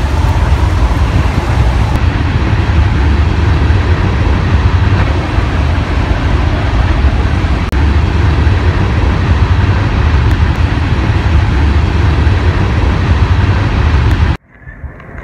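BNSF freight train passing close by, its diesel locomotives and then a line of rail cars rolling past. It makes a loud, steady, deep rumble that cuts off abruptly near the end.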